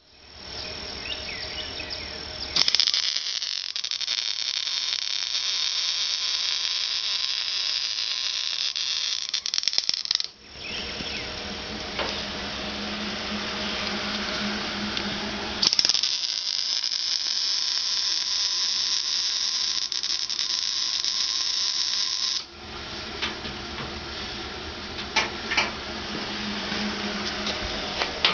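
Welding arc on the sheet-steel hood of a 1950 Chevrolet: two long runs of steady hiss, each several seconds, that start and stop abruptly. Between the runs there is a low hum and a few sharp clicks.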